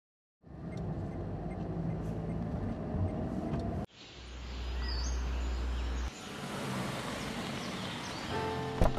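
Car engine running as a car pulls slowly up a paved driveway, heard in several cut segments with a steady low hum and road noise. Music starts near the end, with a sharp click just before it ends.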